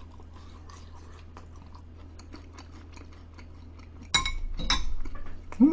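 Close-miked mouth sounds of chewing cheese-baked potato fries: soft, wet chewing with small crunches. About four seconds in, a sudden louder, noisier stretch lasting more than a second.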